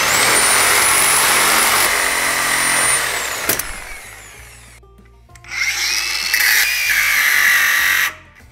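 Electric angle grinder cutting into a seized, rusted cab mount bolt on a 1963 Chevy C10, a high whine over harsh metal grinding. It spins up, runs about three seconds and winds down, then starts again about two seconds later at a lower pitch under load and cuts off suddenly just before the end.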